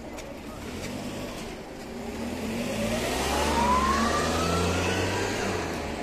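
A vehicle accelerating past. A low engine rumble swells to its loudest about halfway through, while a whine rises steadily in pitch over about three seconds.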